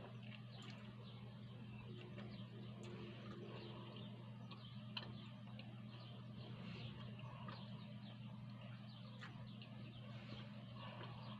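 Faint close-up chewing of a homemade shawarma: a steady patter of small wet clicks and lip smacks from the mouth, over a steady low hum.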